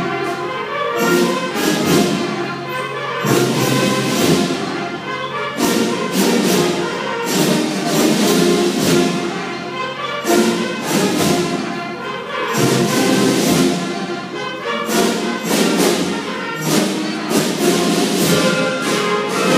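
A student band playing a piece, with sharp accents every second or two.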